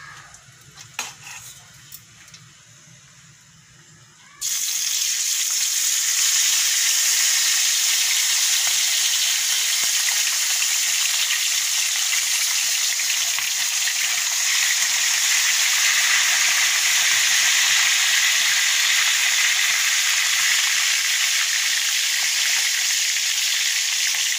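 Whole tilapia frying in hot oil in a wok: a loud, steady sizzle that starts abruptly about four seconds in, after a few seconds of near quiet with faint clicks.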